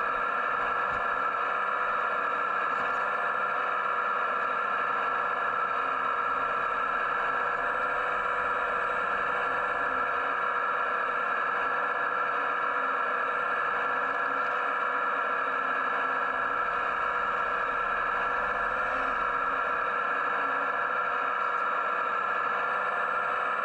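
Radio-controlled Hitachi ZX135US model excavator running while it digs and swings, picked up by a camera mounted in its cab: a steady whine with several constant tones that does not change.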